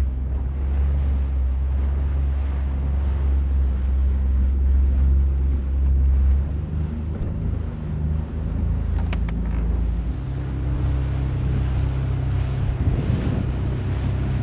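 Small open motorboat running at speed: a steady engine drone under wind buffeting the microphone and water rushing past the hull. The low drone shifts about six seconds in, and there is a brief knock a few seconds later.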